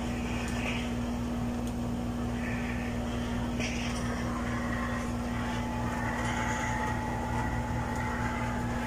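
Xiaomi Zajia GT-301W handheld garment steamer running while steaming a hanging blouse: a steady hum with the even rush of steam, and a faint higher tone joining a little past halfway.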